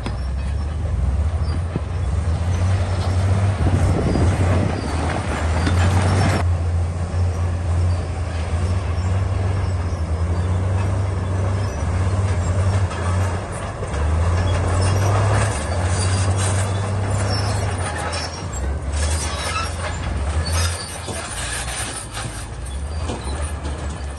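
Crawler bulldozer working: its diesel engine running under load, with clanking steel tracks. A rushing noise cuts off suddenly about six seconds in.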